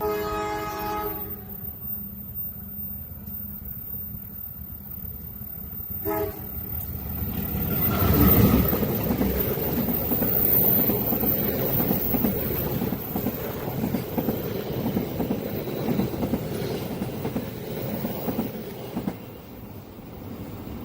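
A train horn sounds a chord for about a second, then gives a short second blast about six seconds in. A long train then passes close by: a loud rumble of wheels on rails that peaks soon after the horn and fades near the end.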